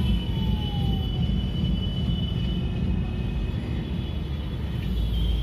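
Steady low outdoor rumble, with faint steady high tones above it and a faint falling tone about a second in.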